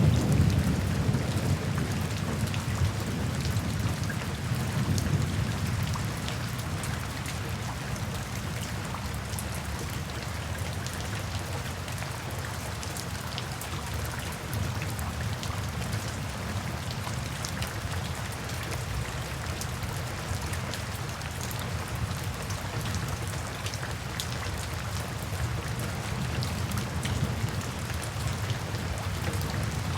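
Steady rain pattering down with scattered distinct drops, and a low thunder rumble that fades away over the first few seconds.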